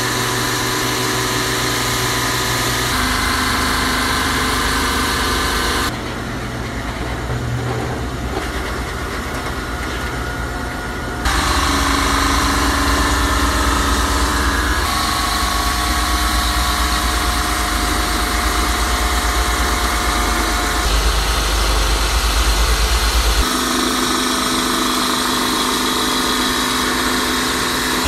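Performax SuperMax 37x2 dual-drum sander running with a steady motor hum and sanding hiss as a wood slab feeds through. The sound changes abruptly in level and pitch several times, quieter for a stretch about six seconds in and louder again about eleven seconds in.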